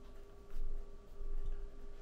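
A light click from a hand handling the oscilloscope's front-panel controls, about half a second in, with a fainter one later, over a low steady hum.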